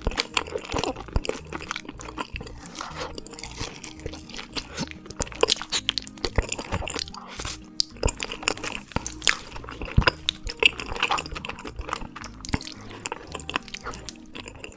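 Close-miked wet chewing and smacking of spicy braised beef feet, with many quick sticky mouth clicks and occasional crunchy bites, over background music.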